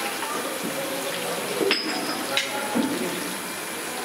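Chicken pieces deep-frying in a large kadai of hot oil, the oil sizzling and bubbling steadily.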